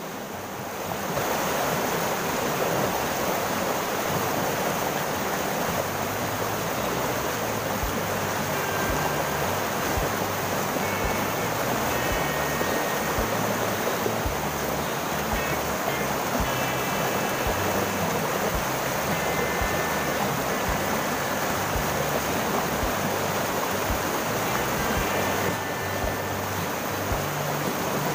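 Fast, shallow river water rushing steadily over rocks. Background music with a steady beat plays under it.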